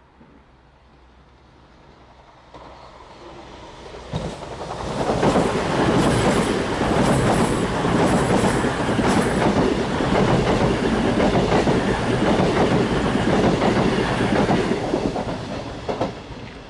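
CrossCountry Voyager diesel multiple unit approaching and passing close by at speed, wheels clattering over the points. The sound builds from a few seconds in, stays loud through the pass and fades near the end.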